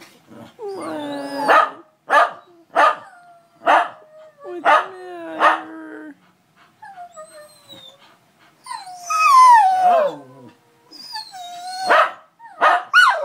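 Dogs howling together: a run of short, sharp yelping howls for the first six seconds, a long howl falling in pitch about nine seconds in, and more yelps near the end. The howling is put down to one dog missing her absent owner, with the others joining in.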